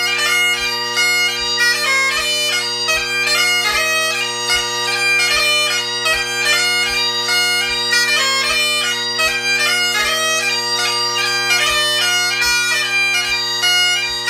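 Great Highland bagpipe playing a quick reel: a fast chanter melody over the steady, unbroken drones. A faint low thump falls on each beat, about twice a second.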